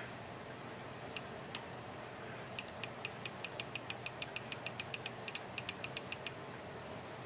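The switch and lever mechanism under a Technics SL-D30 direct-drive turntable, clicking as it is worked by hand while testing its on-off micro switch. There are two single clicks, then a quick, even run of crisp clicks, about six a second, lasting nearly four seconds.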